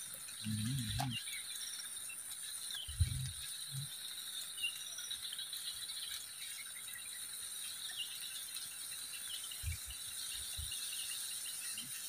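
Steady chorus of insects, two even high-pitched buzzing tones. A few short low thumps break in, the loudest about three seconds in.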